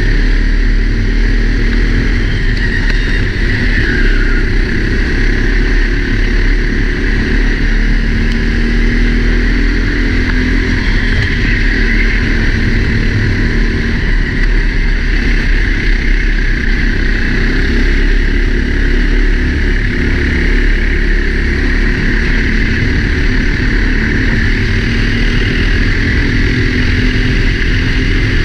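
Four-stroke Sodi kart engine running hard under racing load, a steady loud drone whose pitch rises and falls a little, heard from a helmet camera with wind rush over the microphone.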